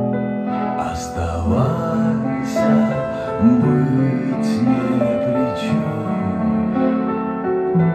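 Music from a vinyl record played through a Sansui AU-X1111 MOS Vintage amplifier and loudspeakers: a slow piece of long held notes with a gliding melody line and a few light accents.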